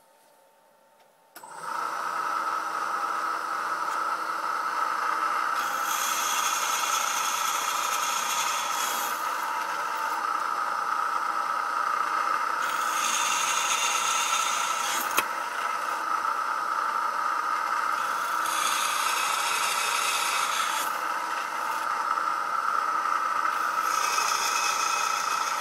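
Drill press motor starting about a second and a half in and running with a steady whine. A twist drill cuts into mild steel plate four times, each cut adding a few seconds of harsher, hissy cutting noise over the motor.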